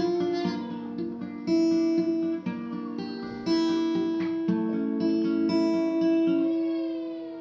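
Acoustic guitar playing the closing fingerpicked chords of the song. A new chord sounds about once a second and is left to ring, and the playing fades toward the end.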